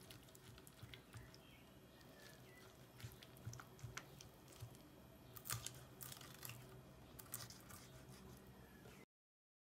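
Faint crunching and crackling as a spatula cuts through a baked potato and minced-meat casserole with a browned cheese topping, with a few louder crunches about halfway through. The sound cuts off just before the end.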